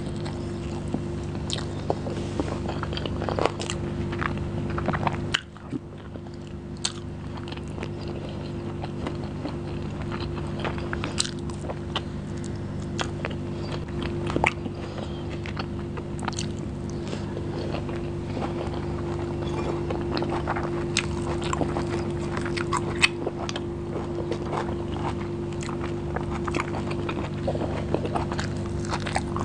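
Close-miked chewing and biting of a person eating biryani, chicken curry and tandoori chicken with her fingers: many small sharp mouth clicks over a steady low hum.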